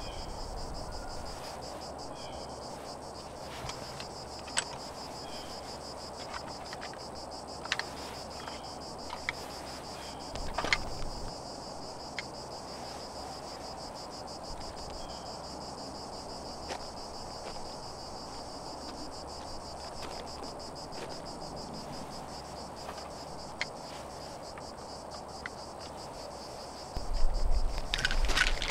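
Insects chirring in a steady high trill, with scattered small clicks and knocks, and louder rustling and knocking near the end.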